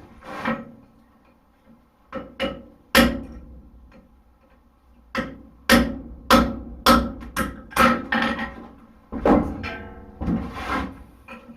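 Hammer blows on a punch driving a hole through hot horseshoe steel on an anvil: about a dozen sharp, ringing strikes in irregular groups.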